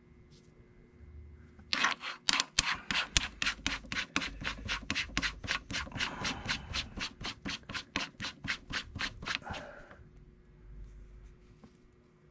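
7075 aluminium AR-15 barrel nut being spun by hand onto the threads of the upper receiver: a quick, even run of short scraping strokes, about four a second, starting about two seconds in and stopping some eight seconds later.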